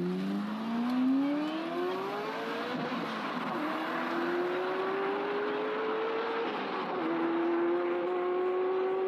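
A car accelerating hard: a pitched drivetrain note climbing steadily, dropping sharply twice, about three seconds and seven seconds in, then climbing again, much like gear changes.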